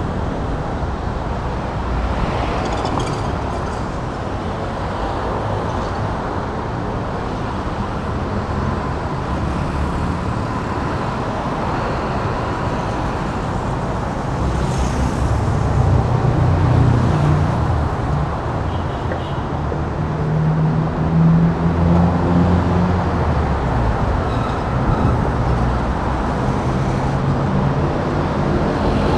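Steady city road traffic from cars and vans passing on a multi-lane road. About halfway through, the low hum of a nearby engine grows louder.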